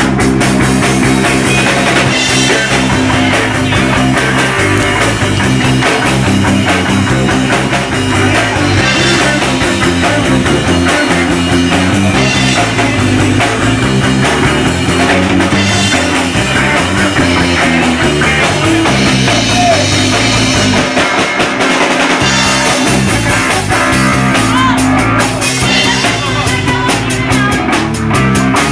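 Loud rock music with drum kit and guitar, playing continuously.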